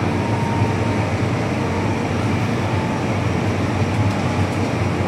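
Steady hum and rush inside an MTR M-Train car standing at a platform with its doors open: the car's ventilation and on-board equipment running, with a low hum and a faint steady tone fading in the first second.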